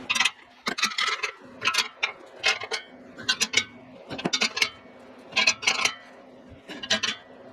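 Metal hand tools clicking and clinking on the exhaust in short bursts, about one every second, some with a brief metallic ring.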